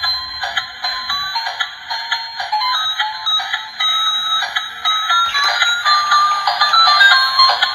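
Electronic duck toy playing a tinny beeping melody from its small speaker, one note at a time, with no bass.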